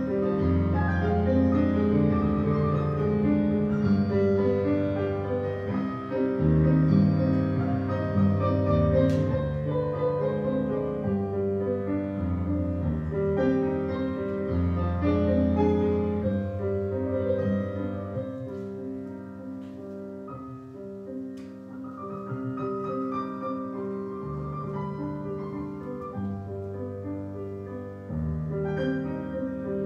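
Solo piano playing classical ballet-class accompaniment for pliés, in sustained chords, with a softer passage about two-thirds through.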